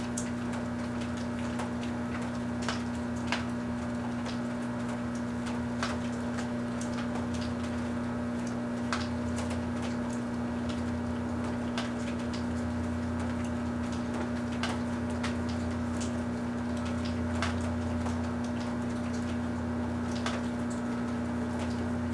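Large Kenmore microwave oven running with a steady electrical hum, with scattered sharp crackles and pops from the light-wrapped Christmas tree heating and catching fire inside.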